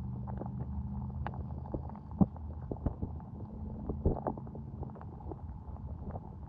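Muffled underwater sound through a GoPro's waterproof housing at the bottom of a creek pool: a steady low hum with many scattered small clicks and knocks, the sharpest about two seconds in and again about four seconds in.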